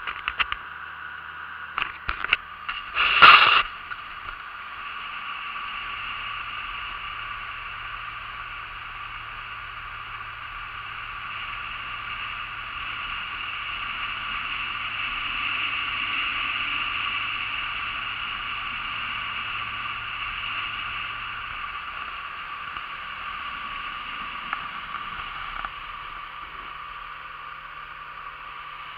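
Small Ob-type aluminium motorboat under way: steady hiss of the running outboard motor and rushing water. A loud clatter about three seconds in, after a few sharp clicks.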